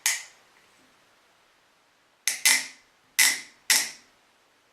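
Seed Master hand seeder's wheel clicking as it is turned to vibrate carrot seeds out: one click, a gap of about two seconds, then four clicks in quick succession.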